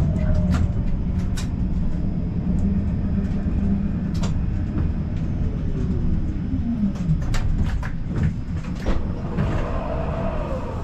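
Siemens Combino tram running on its rails with a steady low rumble and scattered clicks of the wheels over rail joints. Its motor whine falls in pitch about five to seven seconds in as the tram slows, and a brief wavering tone comes near the end.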